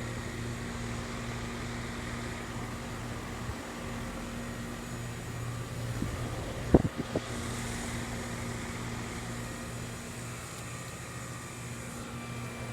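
Steady hum of a running central air-conditioner condensing unit, its compressor and fan droning low and even. A short sharp knock, the loudest thing, comes about two-thirds of the way through.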